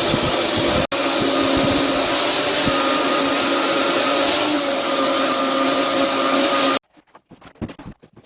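Electric woodworking machine running steadily with a motor whine, cutting off suddenly near the end, followed by a few light taps.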